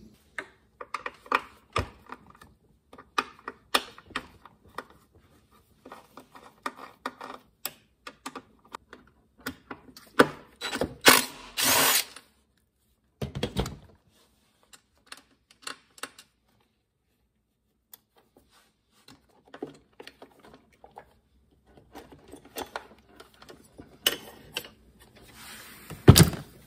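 Hand driver turning out the screws that hold the ignition coil on an Echo PB-580T backpack blower's engine, with the coil and its wire being handled: scattered small metal clicks and ticks, a louder clatter about eleven seconds in, a quiet stretch after it, and a sharp knock near the end.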